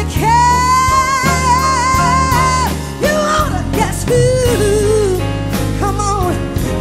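A song with a singer holding one long, wavering high note for about two and a half seconds, then shorter sung phrases over instrumental backing with a steady beat.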